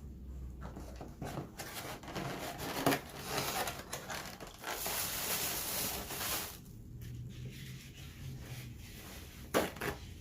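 Eating and food-handling sounds close to the microphone: rustling and crinkling from about a second and a half in to about six and a half seconds, with a couple of sharp clicks.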